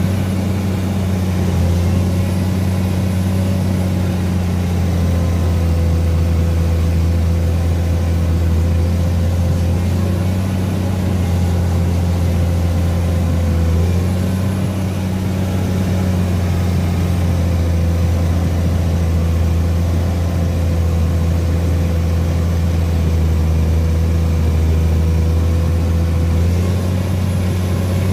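Komatsu PC210 excavator's diesel engine running steadily under load while towing, a loud, deep drone. It eases briefly about halfway through and again near the end.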